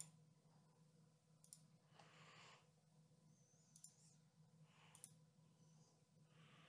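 Near silence: faint room tone with a few soft, scattered computer-mouse clicks.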